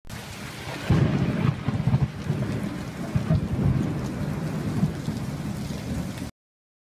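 Steady heavy rain with rolling thunder, rumbling loudest from about a second in; it cuts off suddenly about six seconds in.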